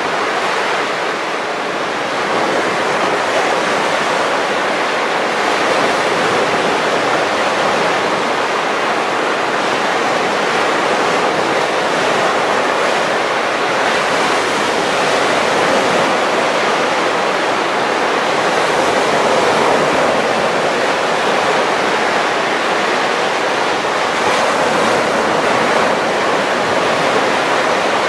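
Baltic Sea waves breaking and washing up a sandy beach, a continuous wash of surf.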